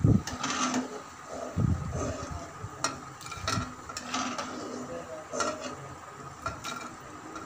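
A metal skimmer scraping and clinking against a steel karahi as fried dal fritters (dahi baray) are lifted out of the hot oil, with scattered sharp taps, two dull thumps near the start and a faint sizzle underneath. The fritters are done, light brown, and coming out of the oil.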